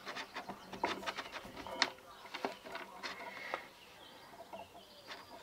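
Quiet small metal clicks and rattles as a crocodile clip is clamped into the alligator-clip jaw of a third-hand soldering stand and handled. The sharpest click comes about two seconds in.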